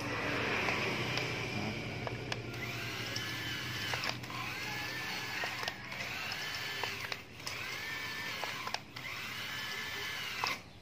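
Small electric steering motor of a homemade kids' ride-on car, run from a remote-control receiver, whining in short runs of about a second and a half, six times over, as it swings the front wheels left and right. Each run's pitch rises as it starts and drops as it stops. A rougher, steadier motor noise comes first, for about two seconds.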